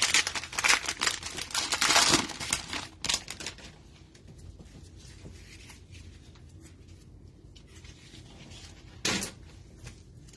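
Plastic cello-pack wrapper of a trading-card pack being torn open and crinkled for about the first three seconds, then faint handling with one short rustle near the end.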